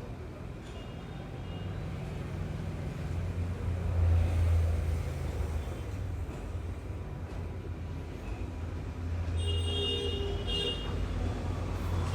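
Road traffic passing, a low rumble that swells about three seconds in and again near the end. Two short steady tones sound near the end.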